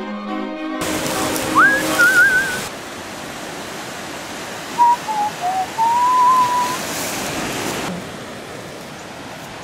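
Ocean surf washing against a rocky shore, a steady rush of water, following a brief moment of string music. Whistled notes sound over it: a rising whistle that warbles about two seconds in, then a few sliding notes ending in a long held whistle near the middle.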